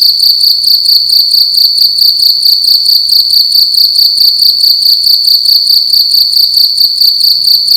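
A cricket chirping loudly and without a break: one high pitch pulsed in a fast, even rhythm.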